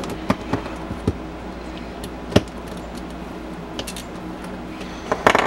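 Small plastic clicks and pops as the center caps of a Yuxin Kylin V2M 3x3 speedcube are pried off with a small screwdriver tip. Scattered sharp clicks, the loudest about two and a half seconds in and a few more near the end, over a faint steady hum.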